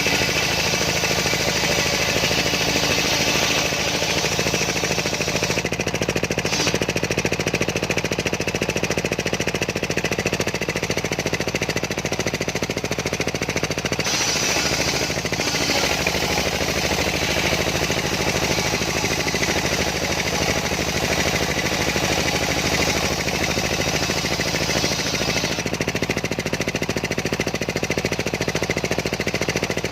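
Homemade engine-driven circular sawbench running under load, ripping a large sengon (albizia) log: a steady engine hum under the higher rasp of the blade in the wood, which eases for a moment about six seconds in and again near the end.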